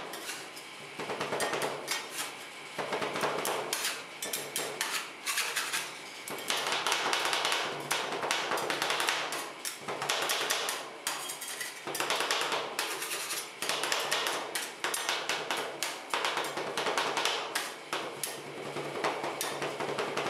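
Two steel spatulas chopping rapidly against a frozen stainless-steel ice cream roll plate, a fast clatter of metal on metal as pineapple is mashed into the cream base.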